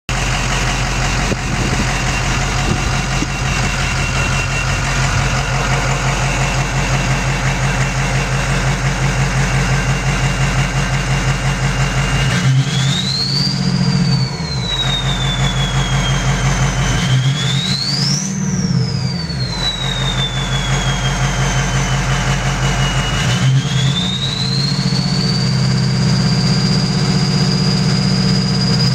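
Ford 6.0L Power Stroke V8 diesel with an upgraded turbocharger: idling with a steady high turbo whistle, then revved three times, the whistle climbing sharply with each rev and sliding slowly back down as the revs fall. Near the end the whistle rises and holds at a higher pitch with the engine held above idle.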